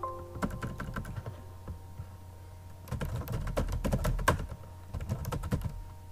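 Computer keyboard typing: a few keystrokes at the start, then a quick run of keystrokes about three seconds in and another shorter run about five seconds in, with pauses between.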